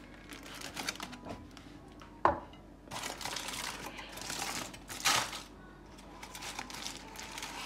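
Aluminium foil crinkling and rustling as a foil parcel is unwrapped by hand, with a sharp knock about two seconds in.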